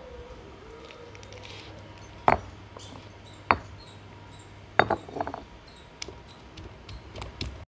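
Stone roller of a traditional grinding stone (ammikkal) knocking down onto garlic cloves on the stone slab, crushing them: three sharp knocks a little over a second apart, then lighter taps near the end.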